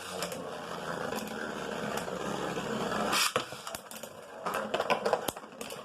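Three Beyblade Burst tops spinning together in a plastic stadium: a steady grinding scrape of their tips on the stadium floor, then sharp clacks as they collide, the loudest about three seconds in.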